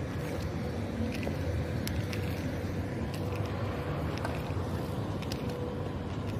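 Steady low rumble of outdoor street background noise picked up by a hand-held phone while walking, with a few faint clicks.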